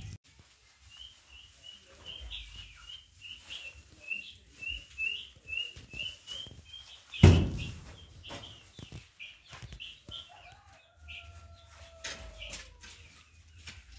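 Poultry in a poultry house peeping: a quick run of short, high chirps about twice a second. A single loud thump comes midway through.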